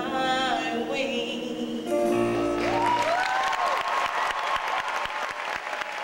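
A female vocalist ends a held note over accompaniment about two seconds in, and the audience breaks into applause, with a few whoops in the first moments of clapping.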